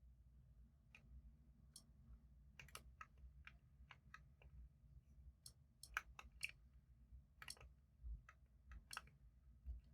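A scatter of faint, irregular small clicks from the opened iPod Mini being handled and tried out.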